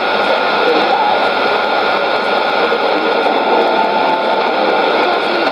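Shortwave AM reception on a Sony ICF-2001D receiver: steady hiss and static cut off above the narrow audio band, with a faint steady whistle running through it. The station's voice is all but lost in the noise.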